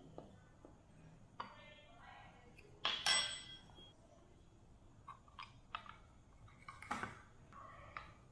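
Metal measuring spoon clinking against a ceramic bowl and plastic spice containers being opened and handled: a scattered series of light clinks and clicks, some ringing briefly, the loudest about three seconds in.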